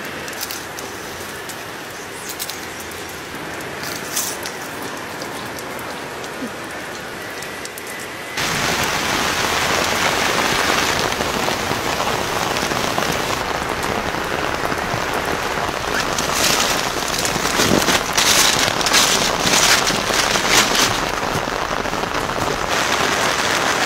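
Steady rain falling, heard from under shelter. About eight seconds in it becomes suddenly louder and heavier, with denser patter a little past the middle.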